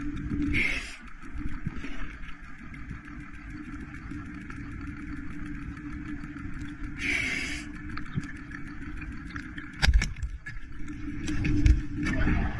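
Underwater sound through a diving camera's housing: a steady low engine-like hum under fine, constant crackling. Two brief hissing rushes come about half a second and seven seconds in, and a few sharp knocks come near the end.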